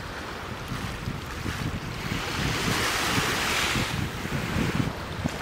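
Wind-driven waves splashing on choppy open water, with wind rumbling on the microphone; it swells louder around the middle.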